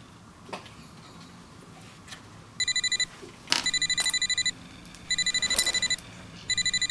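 A digital alarm beeping: a high tone pulsed rapidly, about ten beeps a second, in four short bursts with brief pauses between them, starting about two and a half seconds in. A few faint knocks come before and among the bursts.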